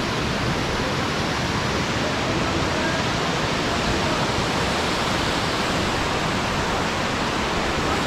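Kookal waterfall rushing steadily close at hand: an even roar of falling water.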